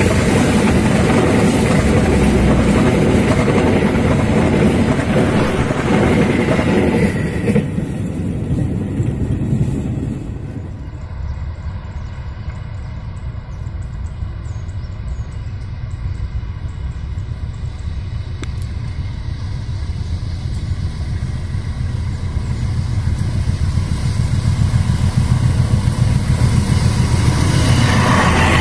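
Wheel and rail noise of a passing train's passenger coaches, which fades away in two steps about eight and ten seconds in. A quieter low rumble follows, then a second train, hauled by a CC 203 diesel-electric locomotive, comes up and grows loud over the last few seconds.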